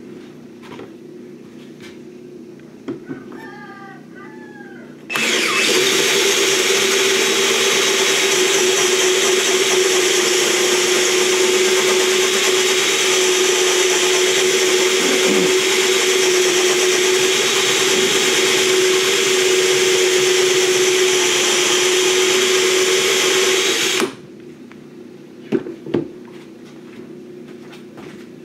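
A 20-volt cordless drill running a hole saw through a wooden hive-top board. It starts about five seconds in, runs at a steady speed with a constant whine for about nineteen seconds, then stops.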